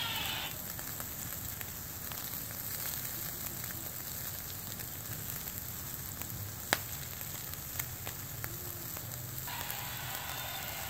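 Bacon-wrapped jalapeño poppers and marinated meat kebabs sizzling on a charcoal grill, with a steady crackle of small pops and one sharp pop about two-thirds of the way through.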